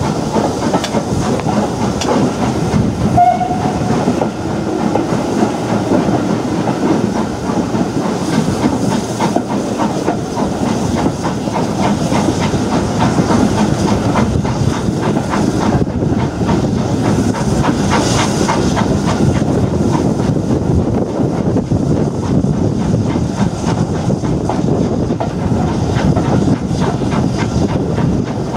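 A steam-hauled train running at speed, heard from an open carriage window: steady locomotive exhaust and hiss mixed with the clatter of wheels over the rails.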